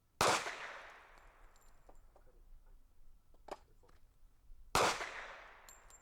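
Two gunshots about four and a half seconds apart, each followed by a long echo fading across the range. A short sharp click comes between them, a second before the second shot.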